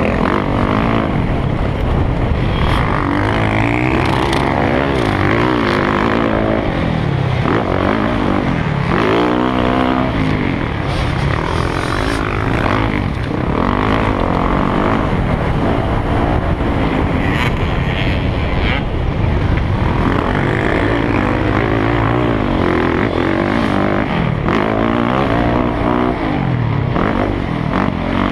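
Motocross dirt bike engine revving hard through the gears, its pitch climbing and dropping over and over, with steady wind noise on the on-board microphone.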